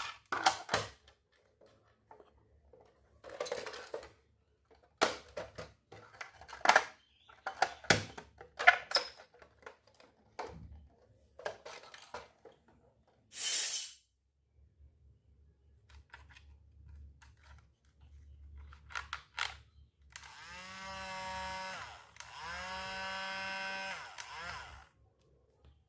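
Small steel toy kitchen pieces clinking and clicking as they are handled and unpacked, with a short hiss about halfway through. Near the end come two pitched, buzzing tones of about two seconds each.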